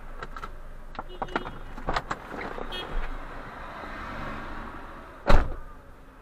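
Street traffic heard from inside a stopped car, with scattered short clicks and knocks and one loud thump about five seconds in.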